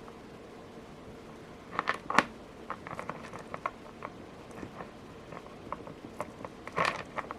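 Scattered small clicks and rustles of fingers tying knots in the thread of a beaded bracelet, with a small cluster of sharper clicks about two seconds in and another near the end. A faint steady hum runs underneath.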